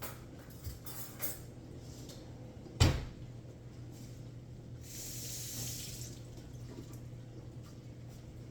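Kitchen handling noises: a few light clicks, then one sharp knock about three seconds in, then a hiss lasting about a second.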